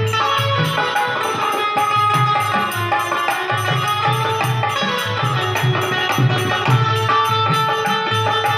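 Instrumental passage of an Indian folk song: a hand drum keeps a steady rhythm under jingling percussion and a sustained melody line.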